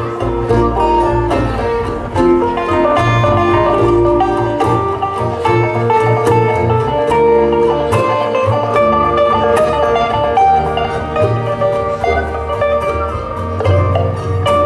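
Acoustic folk string band playing an instrumental passage: strummed acoustic guitar and bowed fiddle with a picked string instrument, over a pulsing low end.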